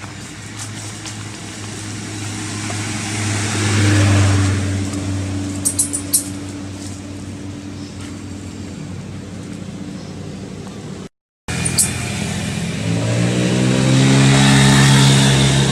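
A motor vehicle engine running steadily, swelling about four seconds in, with a few sharp clicks near six seconds. After a brief gap of silence, an engine revs up, rising in pitch near the end.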